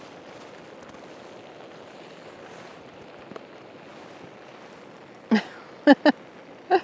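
Steady hiss of rain, with four short, loud voiced sounds close together near the end.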